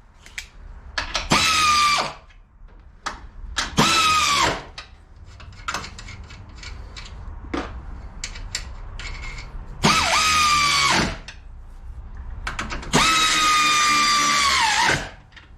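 Cordless electric ratchet running down the top strut nuts in four bursts, each motor whine rising as it spins up, holding, then dropping off, the last and longest near the end. Light clicks and tool handling between bursts.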